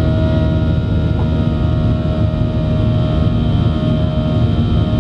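Steady cabin drone of a Boeing 737-800 climbing after takeoff: its CFM56-7B turbofan engines give a low rumble overlaid with several steady whining tones, unchanging throughout.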